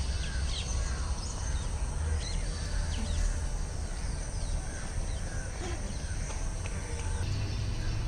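Several birds calling with many short chirps, over a steady low rumble.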